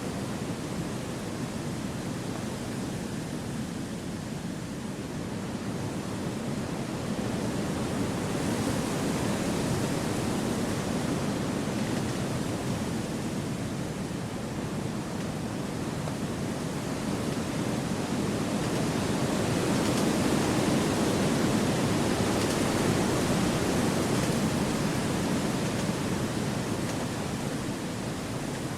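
Wind blowing through forest trees, a steady rush that swells into stronger gusts about a third of the way in and again past the middle, easing off near the end.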